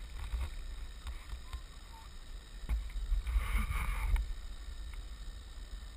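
Wind buffeting a GoPro's microphone as a steady low rumble, with a knock of handling about two and a half seconds in and a brief louder stretch of scuffing movement noise just after.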